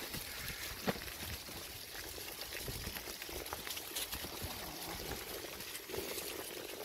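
Bicycle tyres rolling over a path covered in dry fallen leaves: a steady rustling crackle with many small scattered clicks and one sharper click about a second in.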